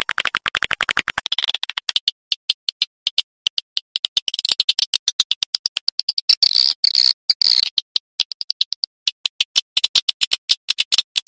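Swiftlet calls played as a swiftlet-house lure: fast trains of dry clicks mixed with high, chirping twitters, busiest a little past halfway through. This is a 'tarik/panggil' call used to draw swiftlets in to roost and nest.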